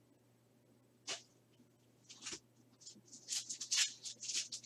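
A foil trading-card pack being torn open and crinkled: a run of short crackly rustles that starts about two seconds in and grows busier toward the end, after a single brushing rustle about a second in.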